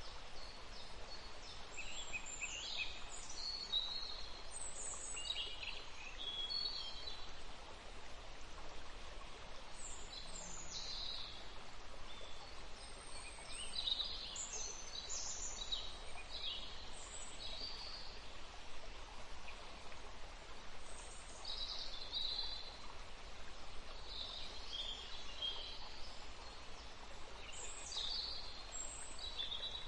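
Nature soundscape: birds chirping in short, scattered calls over a steady soft hiss.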